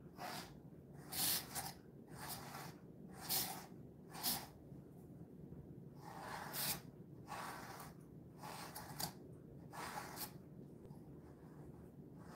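A pet brush stroking through a Jindo dog's coat: short swishes about once a second, a few of them louder than the rest.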